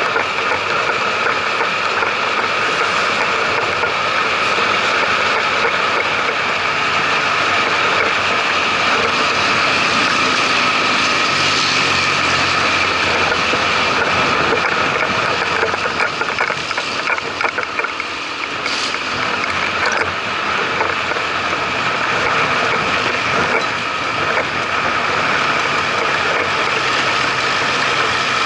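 Steady riding noise from a moving two-wheeler on a road: wind, tyres and running machinery mixed with passing traffic, with a constant whine throughout. It eases briefly around the middle.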